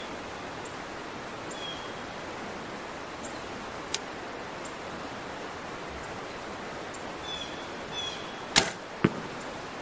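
Mathews Title 38 compound bow shot at full draw: about eight and a half seconds in the string releases with a loud, sharp crack, and about half a second later the arrow strikes the target. A single light click sounds about four seconds in.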